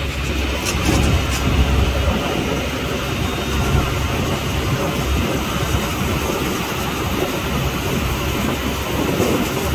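Fishing boat's engine running with a steady low rumble, mixed with a haze of wind and sea noise.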